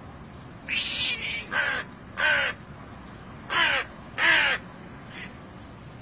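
Crow cawing: a longer call about a second in, then four short caws in two pairs, and a faint last caw near the end.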